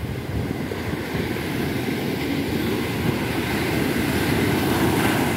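Sea waves breaking and washing up a sandy beach: a steady rushing surf, with wind buffeting the microphone, swelling louder near the end.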